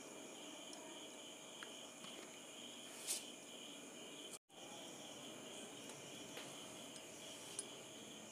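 Faint, steady high-pitched insect chirring, typical of crickets, with a brief soft rustle about three seconds in. The sound drops out for a moment just after halfway.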